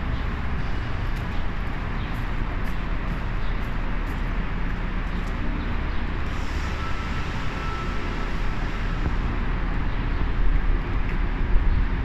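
Downtown street ambience: steady traffic noise with a low rumble, growing more uneven near the end as wind buffets the microphone.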